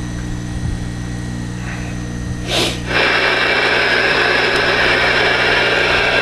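Steady electrical hum, then a brief burst about two and a half seconds in. From about three seconds a louder, steady rushing hiss of CB radio receiver static takes over, with faint steady whistling tones in it.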